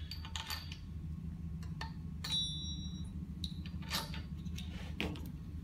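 Scattered light metallic clinks and taps as steel spring pins are worked out of a rotary lobe pump's flange ring and set down. One clear ringing clink comes about two seconds in. A steady low hum runs underneath.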